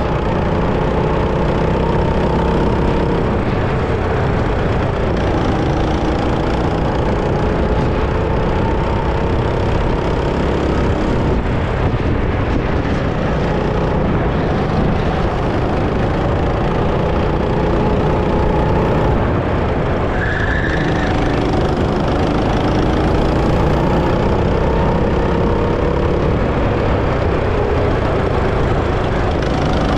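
Go-kart engine running under throttle, its pitch rising and falling repeatedly as the kart speeds up and slows through the track's corners. A brief high-pitched tone sounds about twenty seconds in.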